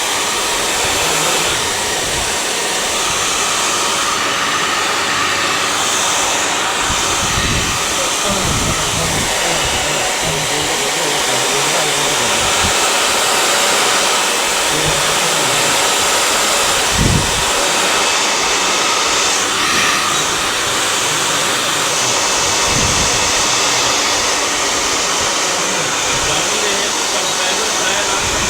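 Handheld hairdryer blowing steadily on hair being styled, with a brief low bump of air about halfway through.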